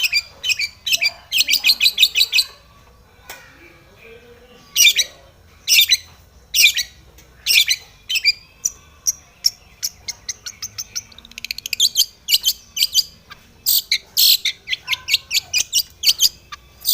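Long-tailed shrike singing: loud, harsh, high calls and rapid chattering phrases in bursts with short gaps, a run of quick ticking notes about halfway through, and dense chatter toward the end.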